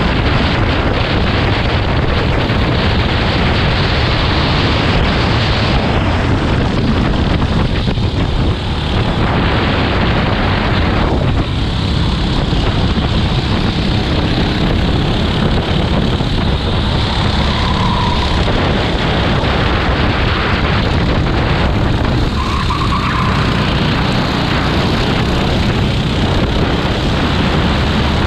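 Racing go-kart engine running continuously, steady and loud with no pauses.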